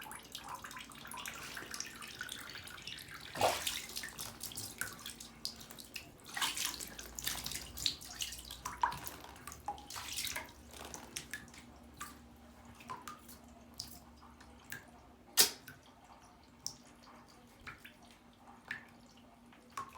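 Water from a tap trickling, dripping and splashing as a pet parrot bathes in it, with scattered small splashes and a couple of sharper, louder splashes. A faint steady hum runs underneath.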